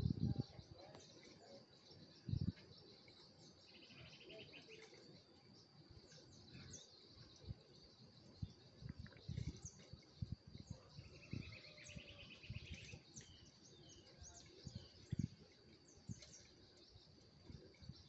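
Faint countryside ambience: insects droning steadily at a high pitch, with scattered bird chirps and twice a rattling trill. A few low bumps, likely from handling the phone, break through, the clearest a couple of seconds in and about fifteen seconds in.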